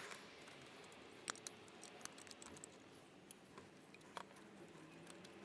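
Near silence with a handful of faint, scattered clicks of hand tools on metal while the long mounting bolts of a BMW B58 engine's high pressure fuel pump are being unscrewed.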